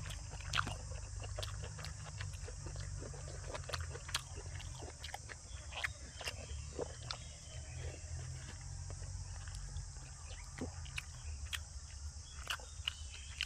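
Close-miked chewing of tender braised pork leg: irregular mouth clicks and smacks, a few a second, over a steady background hum and hiss.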